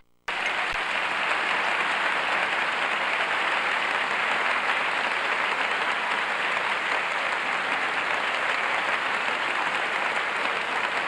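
Audience applauding steadily, cutting in after a split-second gap at the start.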